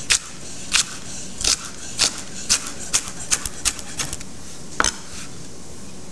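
Chef's knife dicing a pasilla chili on a wooden cutting board: sharp knocks of the blade striking the board, about ten of them at an uneven pace, quicker near the middle, stopping about five seconds in.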